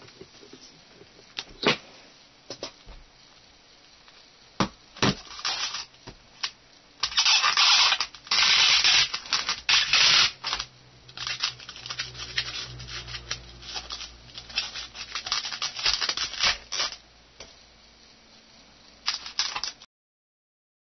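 Hands rubbing and scraping against a styrofoam robot body while a smartphone is fitted into its torso, with scattered sharp clicks. The scraping is loudest for a few seconds near the middle, and the sound cuts off suddenly near the end.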